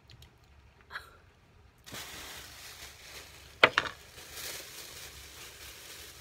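Plastic bag crinkling and rustling as it is handled, a steady crackle, with one short sharp sound partway through.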